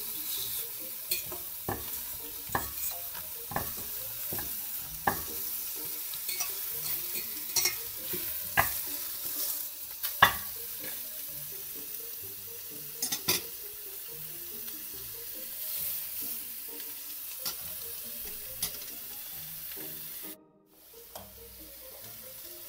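Veal shanks sizzling steadily as they sear in a hot stainless steel pot, with scattered sharp clicks and taps, the loudest about ten seconds in.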